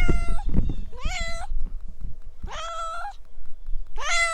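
A domestic cat meowing, four drawn-out meows about a second and a half apart, each rising in pitch and then holding.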